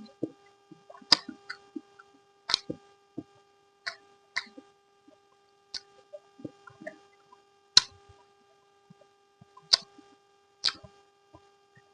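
Close-miked eating: irregular wet mouth smacks and chewing clicks, several sharp and loud, over a faint steady hum.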